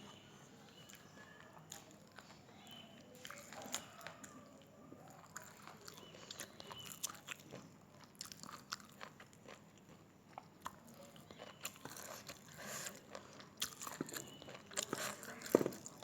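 A person chewing and eating khichuri with beef curry close to the microphone: irregular mouth clicks and smacks, busier in the second half, with one sharper click just before the end.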